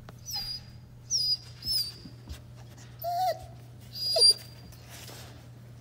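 Australian Shepherd whimpering, a string of about five short, high-pitched whines: excited whining for a new toy.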